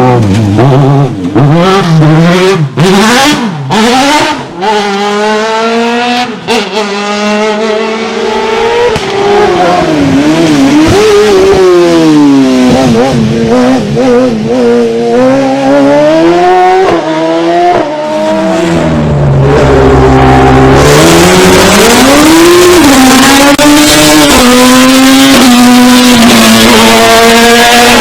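Race car engine at full racing load, its note rising and falling again and again through gear changes, braking and acceleration, with sharp breaks in the sound in the first few seconds. About twenty seconds in, the pitch climbs and stays high to the end.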